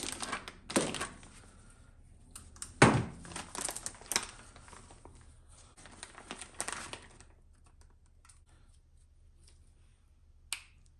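Plastic parts bag crinkling and rustling as an RC air filter is unpacked and handled in gloved hands, with one sharper crackle about three seconds in. The handling dies down after about seven seconds, with a single click near the end.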